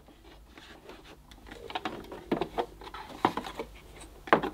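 Cream plastic cover of a 1980s Hoover cylinder vacuum cleaner being handled and pressed back onto its base: light plastic knocks and rubbing, with a few sharper knocks in the second half and the loudest one near the end.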